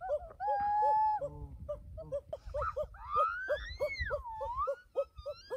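Animal calls: a short call repeats about two to three times a second, with a longer held call near the start and a sweeping call that rises and then falls in pitch around the middle.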